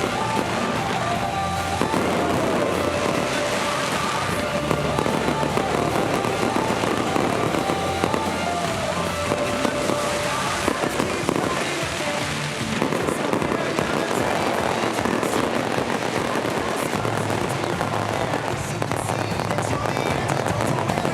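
Aerial fireworks show: a dense, continuous crackle and popping of bursts. Music plays along with a melody and bass line, fading out about halfway through.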